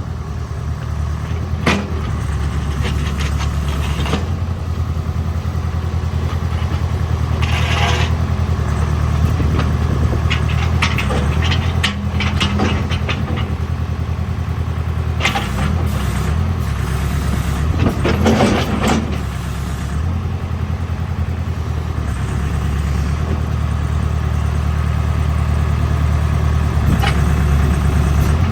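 Case 580 Super K backhoe's Cummins four-cylinder diesel running steadily while the machine works, with scattered metal clanks and scrapes from the bucket and linkage, a dense cluster of them about two-thirds of the way through.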